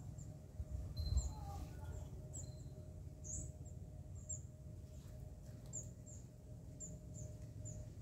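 A small bird's short, high, thin chirps, repeated at irregular intervals all through, over a low background rumble.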